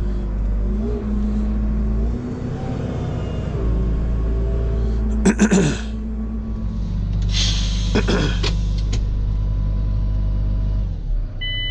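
Tractor engine running with a steady low rumble while drawing a big baler out, its pitch rising and falling a little. There are two brief harsh noises, about five and a half and eight seconds in.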